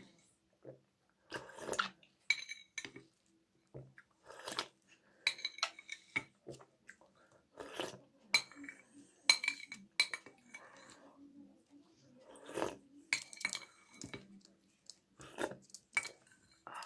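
Metal spoon clinking and scraping against a soup bowl as soup is scooped up, in irregular strokes, some ringing briefly.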